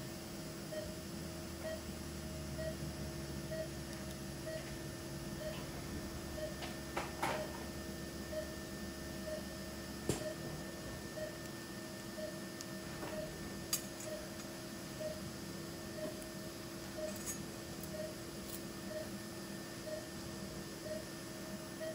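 Operating-room patient monitor beeping steadily with the pulse, about once a second at one pitch, over a steady equipment hum. A few light clinks of metal surgical instruments.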